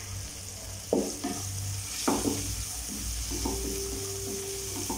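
Stirring onions, tomatoes and spices frying in oil in a nonstick kadai: several irregular scraping strokes against the pan, starting about a second in, over a steady sizzle.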